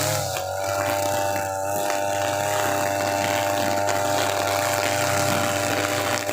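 Two-stroke TB43 brush cutter with a nylon trimmer head running at full throttle through thick grass: a steady high engine whine whose pitch sags briefly just after the start as the grass loads it, then holds level.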